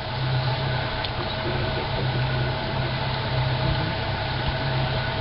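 Tour boat's motor running steadily, a constant low hum with a few steady higher tones.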